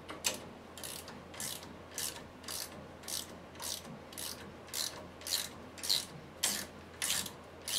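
Hand ratchet clicking in a steady run of back-and-forth strokes, about two a second, as it spins off the nut at the lower end of a front shock absorber. The stubborn nut is now backing off freely.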